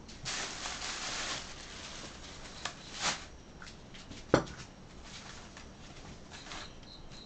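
Ground onion, ginger, garlic and chilli paste being scraped out of a mixer jar into a steel bowl of beef: scraping in the first second and a half, a few light clicks, and one sharp knock about four seconds in.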